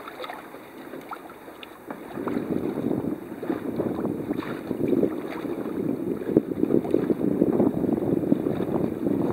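Wind buffeting the microphone and water noise aboard a sailboat under way, uneven and gusty, growing louder about two seconds in.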